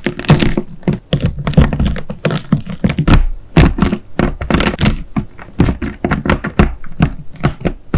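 Slime being squeezed and poked by hand, giving fast irregular clicking and popping with occasional dull thuds.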